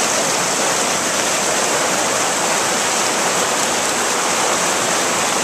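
Fast mountain stream rushing over rocks and logs: a steady, loud wash of white water close by.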